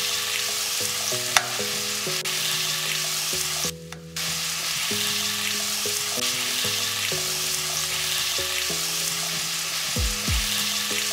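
Milky pumpkin soup sizzling and bubbling steadily in an enamelled cast-iron pot as a spoon stirs it; the sizzle breaks off briefly about four seconds in. A soft tune of held low notes plays underneath.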